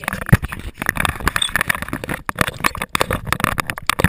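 Rapid, irregular knocks, clicks and rustling from a handheld camera's microphone being handled and jostled as the camera is moved about.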